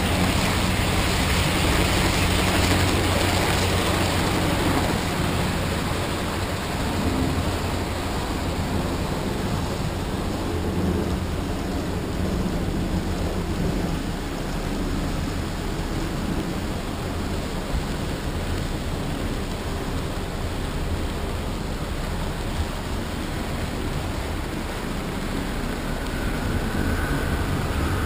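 Model trains running on the layout's track: a steady rumble of wheels on rails and motors. It is louder while passenger cars pass close at the start and again as a diesel locomotive rolls right past near the end.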